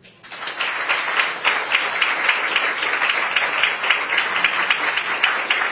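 Audience applauding: many hands clapping, building up over the first half second and then holding steady.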